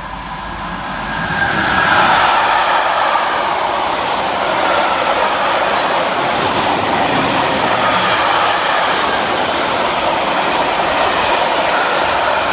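Electric-hauled container freight train passing close by: the rolling noise rises over the first two seconds as the locomotive goes past, then holds as a steady rush and clatter of container wagons' wheels on the rails.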